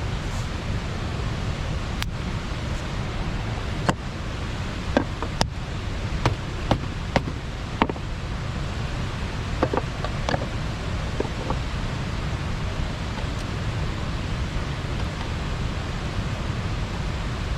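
Steady rush of water pouring over a small river weir, with about a dozen sharp snaps scattered through the first half.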